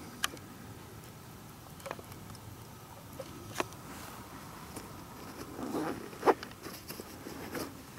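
Close handling noise: scattered small clicks and clothing rustle, the loudest a sharp click about six seconds in, over a faint steady outdoor background.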